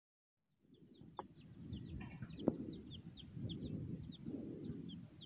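Chickens clucking, with a small bird chirping repeatedly in quick short notes, starting just under a second in after silence. Two sharp clicks come from the key at the motorcycle's ignition lock.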